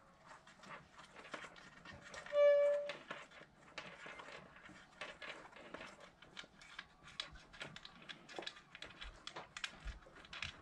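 Small scattered clicks and rattles of a plastic battery-monitor display and its bracket being handled and unscrewed. About two and a half seconds in, a brief steady pitched tone, like a short beep, is the loudest sound.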